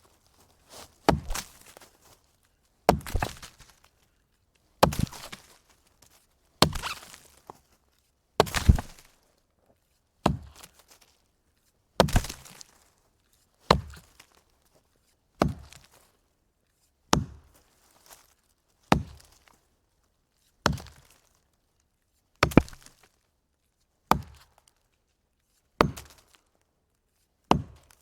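Axe chopping a wooden log: a steady series of sharp strikes, about one every two seconds, each with a brief crackling tail of splitting wood.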